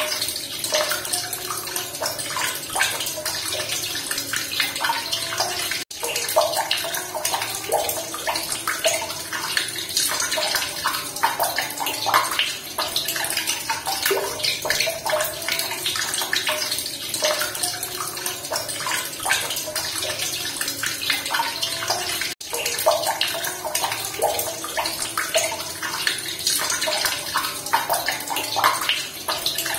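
Running water splashing and gurgling steadily, a close, busy pouring sound full of small splashes; it cuts out for an instant twice.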